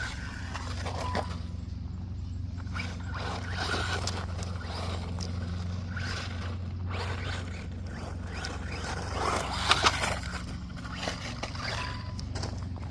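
WLtoys RC car being driven: repeated swells of motor and tyre noise as it runs and scrapes over the ground, with a few sharp knocks about ten seconds in, over a steady low rumble.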